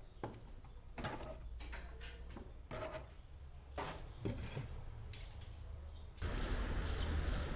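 Raw chicken wings being handled and laid onto a metal tray: a string of irregular soft slaps, knocks and clatters, about one a second. About six seconds in, these give way to a steady, louder background noise.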